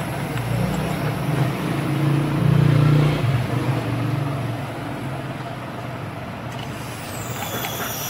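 Compressor used as a vacuum pump running with a steady low hum and a rush of air as the gauge valve is opened and it starts pulling a vacuum on the refrigerator's suction line. It is loudest about three seconds in, and a high whine sliding down in pitch comes in near the end.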